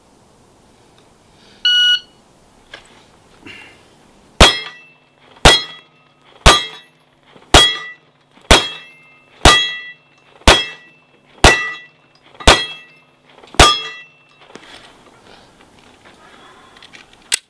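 A shot timer gives its start beep, and about two and a half seconds later a Smith & Wesson M&P40c .40 S&W pistol fires ten shots, about one a second. Each shot is followed by the ring of a steel target being struck.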